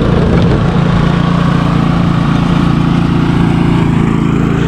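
An engine running loud and steady at an unchanging speed.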